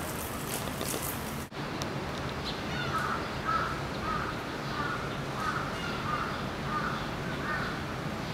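A crow cawing over and over, about eight short calls a little over half a second apart, beginning about three seconds in. Before that the sound drops out for a moment about a second and a half in.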